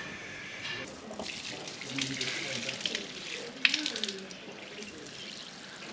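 Running water, a steady rush with a few sharper splashes, with faint voices in the background.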